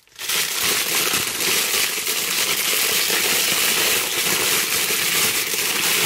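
Thin clear plastic wrapping crinkling and crackling continuously as it is handled and pulled open around a fabric bag.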